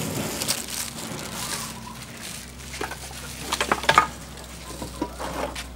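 Light handling noises of cooked rice and its wrapping on a metal tray: soft rustling over a low hum, with a few sharp clicks about three and a half to four seconds in.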